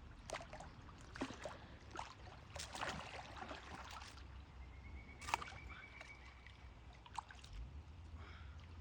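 Water splashing and trickling in short irregular bursts, with a few sharp clicks. A faint steady high tone is held for about two seconds midway.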